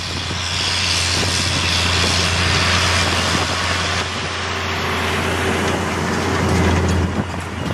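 Challenger MT765C rubber-tracked tractor's diesel engine pulling steadily under load, with the rush of a trailed Steketee Maxisprint cultivator working dry soil. It is loudest as it passes close near the end.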